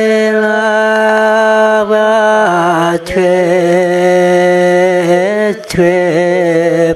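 A man chanting a Karen tha poem in long held notes. The pitch drops about two and a half seconds in, and there are two short breaks for breath.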